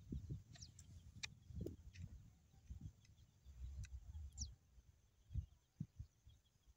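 Faint handling noise: low bumps and a few brief crackles as dry vines are moved by hand, with a few short, faint high bird chirps.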